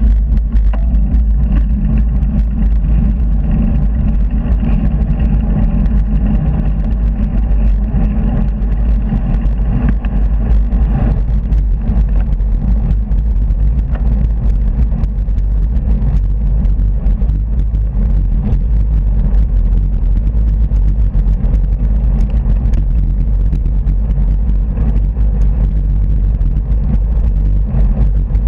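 Heavy wind buffeting on a handlebar-mounted camera's microphone, with road rumble, while cycling beside fast traffic on a dual carriageway. A steady engine hum from passing traffic runs under it for about the first ten seconds and then stops.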